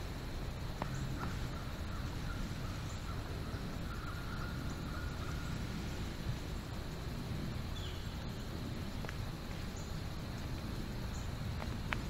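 Quiet woodland ambience: a steady low rumble and hiss, with a faint steady high tone through the first half and a single brief high chirp about eight seconds in.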